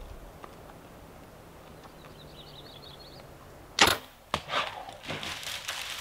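A bow shot: one sharp crack of the released string about four seconds in, a short click just after it, then rustling and brush noise.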